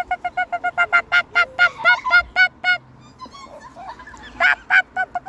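Waterfowl honking in a rapid series of short, nasal calls, about six a second, that slow to louder, more spaced honks, break off for about a second and a half, then start again near the end.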